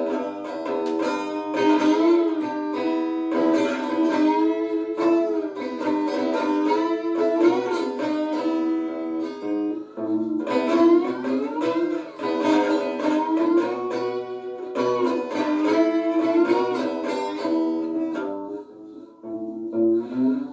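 Three-string cigar box slide guitar (diddley bow) played with a slide: plucked notes that glide up and down in pitch and ring on. Near the end the playing thins to a few softer notes.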